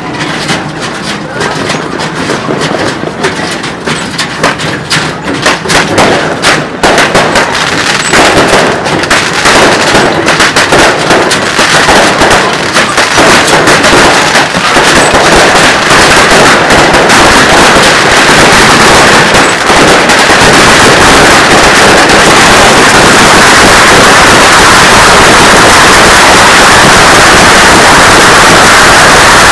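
A beehive rack of bottle rockets fires at close range in rapid crackling bangs and hisses. The bangs come ever thicker and merge about halfway through into one continuous dense barrage, so loud that the recording sits at full level.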